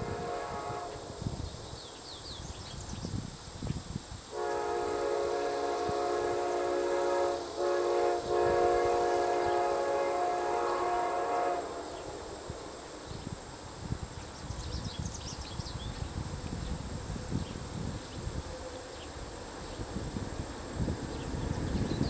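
A locomotive horn sounding a steady multi-note chord from a train not yet in sight. One blast ends about a second in, and a long blast starts about four seconds in and lasts about seven seconds, with a brief break midway. Low wind rumble and a few faint insect chirps run beneath.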